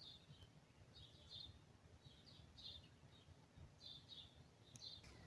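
Faint morning birdsong: short chirping phrases repeated about once a second, over a low background rumble.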